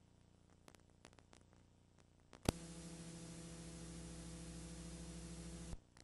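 Electrical mains hum with hiss on an old videotape recording. It switches on with a sharp click about two and a half seconds in and cuts off abruptly near the end. Before it there is near silence with a few faint ticks.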